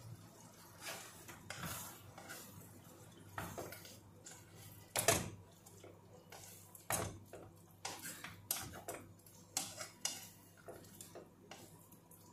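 Wooden spatula stirring food in a cooking pot: irregular scrapes and knocks against the pot, the loudest about five seconds in.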